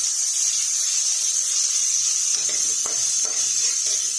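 Ginger sizzling steadily as it fries in hot virgin coconut oil and is stirred in the pan, with one light knock a little under three seconds in.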